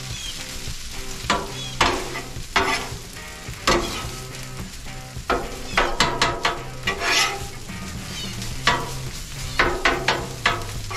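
Fried rice and scrambled egg sizzling on a Blackstone flat-top griddle while being stirred, with irregular sharp scrapes and taps of a utensil against the steel cooktop.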